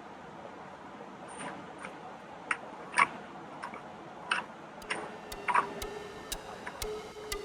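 Several sharp metallic clicks and taps, spaced about half a second to a second apart, from hand tools working on metal brake parts. From about five seconds in, background music with a ticking beat and held tones comes in.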